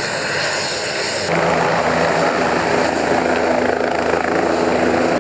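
Helicopter engine and rotor blades running steadily as the helicopter takes off. The sound gets abruptly louder about a second in.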